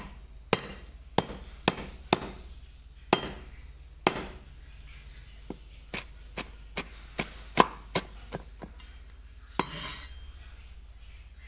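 Cleaver chopping shallots on a thick wooden chopping block: sharp knocks of the blade on the wood, spaced out at first, then a quicker run of strokes about halfway through, and one longer, noisier stroke near the end.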